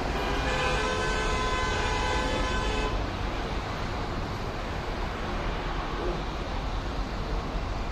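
A vehicle horn blows one steady, held blast of about two and a half seconds, starting and stopping sharply, over the steady noise of highway traffic.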